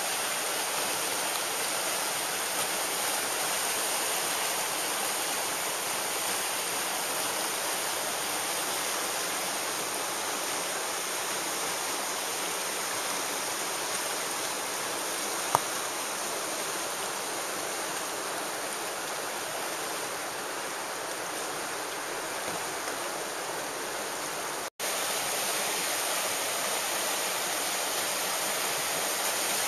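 Whitewater rapids on a canoe slalom course rushing steadily, with one short click about halfway through and an instant of silence near the end.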